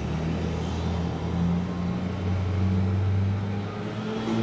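Small gasoline engine of a neighbour's lawn equipment running steadily, its pitch stepping up and down as the throttle changes.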